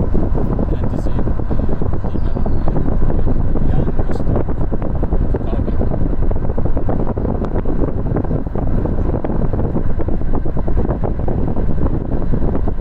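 Steady, loud low rumbling noise of wind buffeting the microphone, with a few faint clicks.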